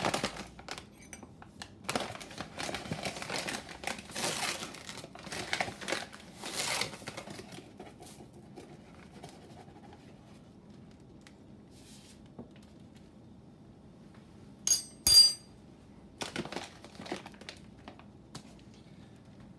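Plastic zip-lock sandwich bag crinkling and rustling while sugar is spooned into it. The rustling is busiest in the first several seconds. About three quarters of the way through come two sharp, loud clicks close together, followed by a little more rustling.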